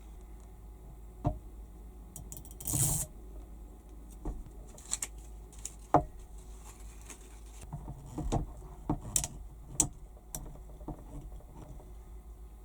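Scattered sharp clicks and knocks, with a short hiss about three seconds in, over a faint steady low hum.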